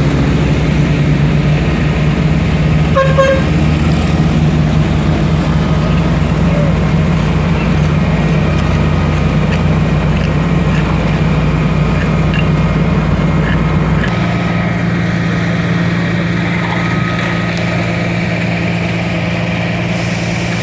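Heavy diesel truck engine running steadily at a concrete pour. About fourteen seconds in, its deep low rumble drops away and the engine runs on more lightly. A short beep sounds about three seconds in.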